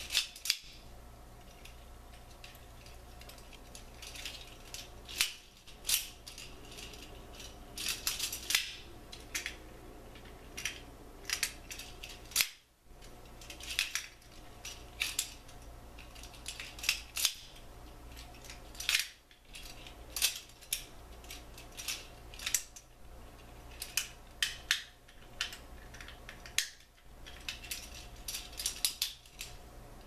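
Plastic Transformers One-Step Drift figure flipped open and shut like a butterfly knife, its hinged halves clacking together in sharp clicks that come in quick clusters every second or so.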